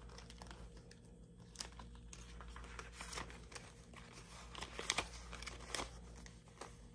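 Paper dollar bills rustling and snapping faintly as they are counted by hand, an irregular run of crisp little flicks with a few sharper ones about five seconds in.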